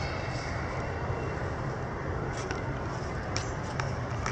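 Steady outdoor background rumble and hiss, with a few faint short clicks in the second half.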